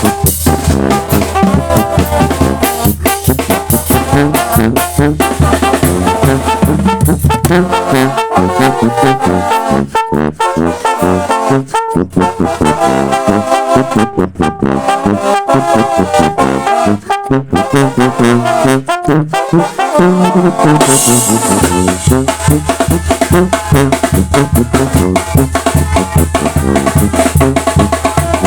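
Sinaloan banda (brass band) playing: trumpets and trombones over drums and a deep bass line. The bass drops out through the middle and comes back with a cymbal crash about two-thirds of the way in.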